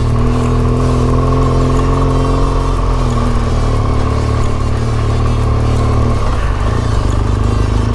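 BMW R1200GS flat-twin engine running steadily as the motorcycle rides along a dirt track, its pitch easing down slightly about three seconds in and the sound changing about six seconds in.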